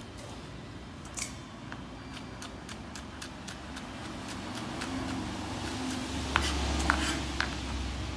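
Kitchen knife chopping a green vegetable on a plastic cutting board: a steady run of sharp taps, about three a second, with a few louder strokes in the last couple of seconds.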